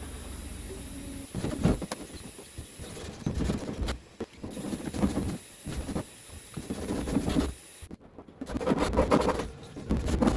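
Scraping and rubbing in irregular bursts as leftover adhesive residue from the old keypad is cleaned off the vending machine's keypad mounting surface.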